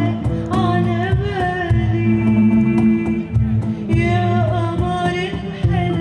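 A woman singing a slow Arabic song live, holding long notes with vibrato. A band accompanies her with plucked strings and a steady beat.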